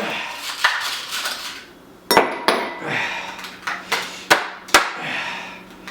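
Ice cubes being dropped into a glass: several sharp clinks and knocks with rattling in between.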